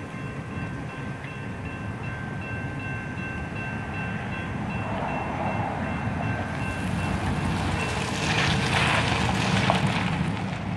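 Railroad grade-crossing warning bell ringing steadily, stopping about halfway through as the gates lift. Then pickup trucks drive across the tracks, their engine and tyre noise growing louder near the end, over a steady low rumble.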